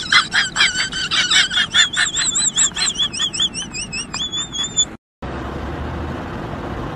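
A fast run of high, squeaky animal calls with warbling, wavering notes. They cut off abruptly about five seconds in, and a steady low whirring hum follows.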